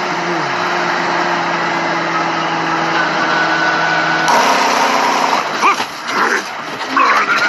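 A steady engine drone at an even pitch. About four seconds in, the sound cuts abruptly to a different clip with wavering pitched sounds.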